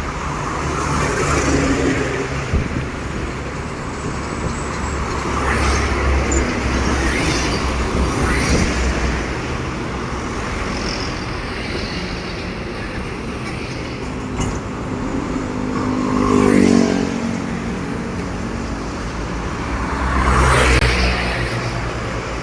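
Heavy trucks passing on a road, with steady diesel engine rumble and tyre noise. It swells three times as vehicles go by, and on one pass about three-quarters of the way through the engine note drops in pitch as it passes.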